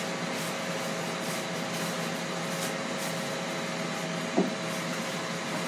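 Steady hum of an electric appliance fan, with faint soft squishing from a gloved hand mixing raw chicken wings in a stainless steel bowl.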